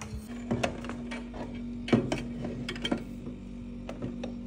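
A steel Stanley tumbler handled and set under a water dispenser: several sharp clicks and knocks, the loudest about two seconds in, over a steady low electrical hum.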